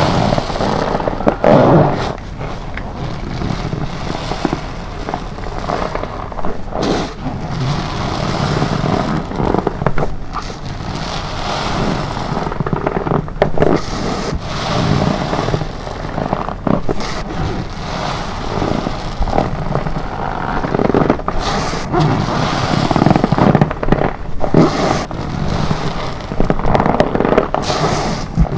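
Soapy sponge, soaked with detergent and cream cleanser, squeezed repeatedly by gloved hands: wet squelching with dense crackling of foam, plus rubber gloves rubbing and squeaking.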